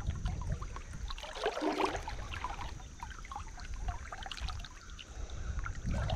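Swift floodwater rushing and splashing against a person wading through the current, with a heavier burst of splashing about a second and a half in.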